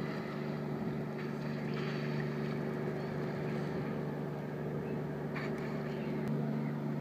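Whale-watching boat's engine droning steadily at an even pitch.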